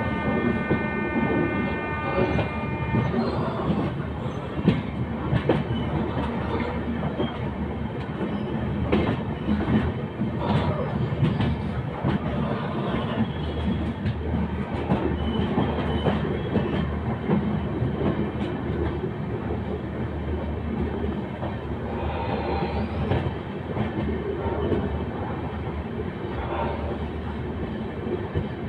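Amritsar–Chandigarh express train running at speed, heard from aboard: a steady rumble with the clickety-clack of wheels over rail joints. A horn sounds at the start and stops about three seconds in.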